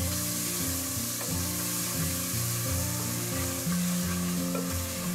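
Tomatoes, onion and spices sizzling in hot oil in an aluminium pressure cooker while a plastic spatula stirs and scrapes them, the masala softening. Soft background music with slow, changing notes plays underneath.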